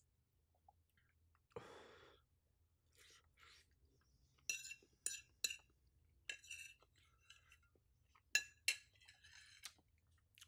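A metal fork clinking against a plate while eating: three quick clinks about halfway in and two more near the end, with faint chewing between them.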